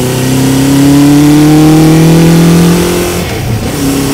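Honda CB750's inline four-cylinder engine pulling as the bike accelerates, its pitch rising steadily for about three seconds. It then drops out briefly as the rider changes up a gear and runs on at a lower, steady pitch.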